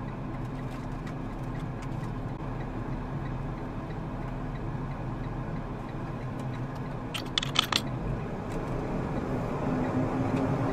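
Semi truck's diesel engine running steadily, heard from inside the cab, with a quick cluster of clicks about seven seconds in. The engine's pitch rises a little near the end.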